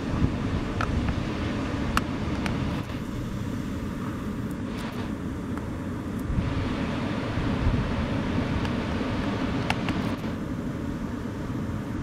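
Wind buffeting the microphone over the steady low roar of breaking surf, with a few faint clicks.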